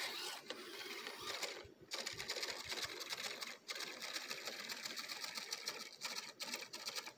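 Servo motors and gears of a Sony Aibo ERS-7 robot dog whirring as it moves. The sound is a dense run of fine, rapid clicking that breaks off briefly twice and turns into separate clicks near the end.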